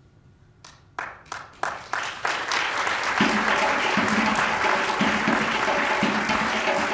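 Theatre audience applauding: a few scattered claps start about half a second in and swell within a couple of seconds into full, steady applause.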